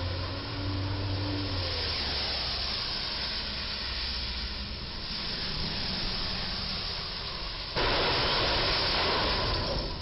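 Traffic hiss on a rain-soaked street: tyres on wet pavement, with a low engine hum in the first second or so. The hiss jumps suddenly louder near the end.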